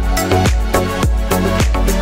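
Music with a steady dance beat, about two strong beats a second, over a deep bass line.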